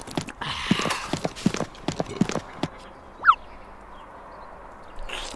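Cartoon sound effects: a quick run of hollow clip-clop taps for about two and a half seconds, then a short falling whistle a little past three seconds in.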